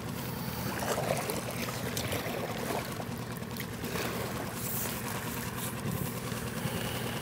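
Oar strokes splashing in the water every second or so as an inflatable PVC boat is paddled, over a steady rush of wind and lapping water.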